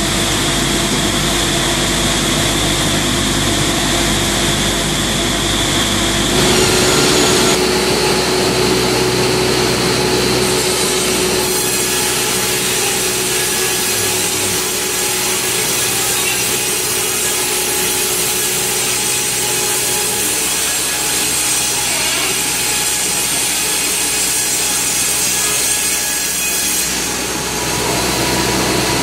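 Horizontal band saw cutting lengthwise through a log, a steady loud sawing noise. For the first few seconds a multiblade circular saw is edging a wooden slab instead, and the sound changes abruptly about six seconds in.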